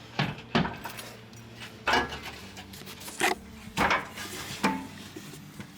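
Metal clanks and knocks, about six separate hits, as the car's exhaust pipe and muffler are worked loose from their fitting.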